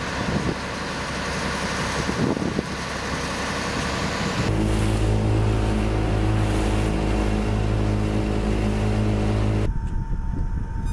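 Wind and rustling of dive gear on deck, then, after a cut, a boat engine droning steadily with a deep hum; near the end it cuts off abruptly to quieter sea-air noise with a faint steady tone.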